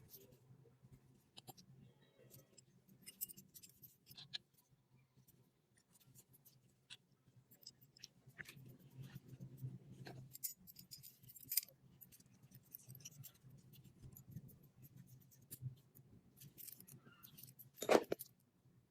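Faint scattered clicks and scrapes of hand tools working on the dagger's metal parts over a low steady hum, with one louder knock about a second before the end.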